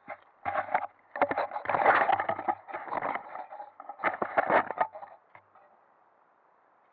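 Close crunching and scraping of broken shells and shingle in three short spells, then it stops.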